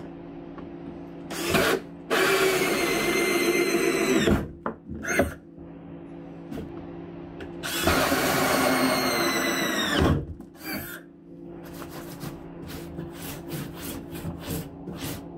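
Cordless drill with a 2-inch hole saw cutting through a plastic tote lid: two runs of about two seconds each with short blips between, the motor's whine dropping in pitch during each run. Near the end, light scratchy ticking as a hand brushes plastic shavings across the lid.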